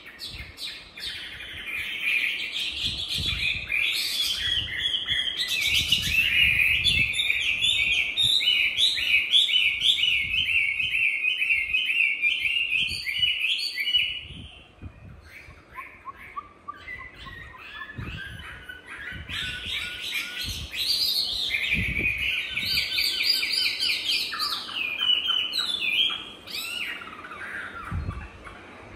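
Chinese hwamei singing its long, rapid, varied song. The song breaks off about halfway, gives way to softer scattered notes, then picks up again.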